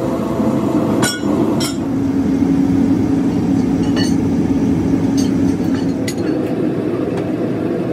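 Electric air blower running steadily with a low hum, forcing air through a pipe into a wood fire in a furnace's firebox. A few sharp metallic clinks sound over it.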